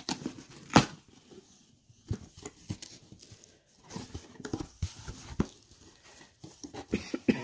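Corrugated cardboard box being opened by hand: the flaps pulled free and folded back, scraping and rustling, with one sharp snap about a second in, then irregular scrapes and taps as a cardboard sheet inside is handled.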